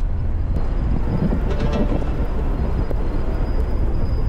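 Toyota off-road vehicle driving on a desert road, heard from inside the cabin: a loud, steady low rumble of engine and road noise, with a few rattles from the body about a second and a half in.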